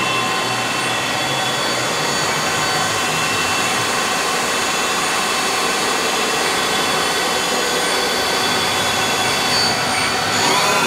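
Cubic Diamond 32B CNC Swiss-type lathe running a job: a steady machine whir with several steady whines. Near the end, one whine rises in pitch.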